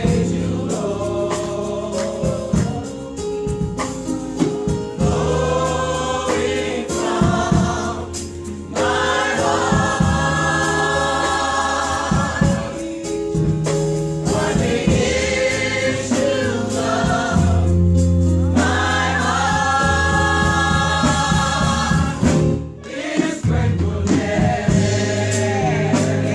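Gospel choir singing in full voice with live band accompaniment: a bass line under the voices and a steady drumbeat.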